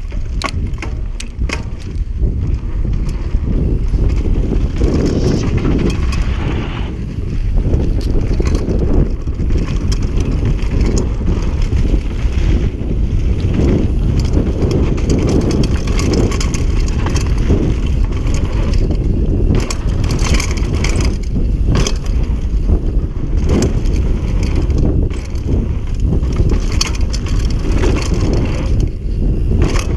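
Mountain bike descending a dirt and gravel trail at speed: tyres crunching over the ground, with frequent sharp rattles and clacks from the bike over bumps. Wind buffets the camera microphone in a steady low rumble.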